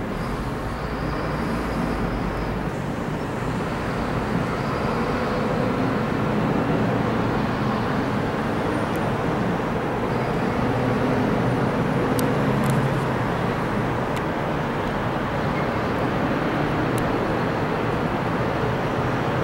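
Steady rumble of distant engines, with a faint high whine in the first few seconds and a few brief clicks partway through.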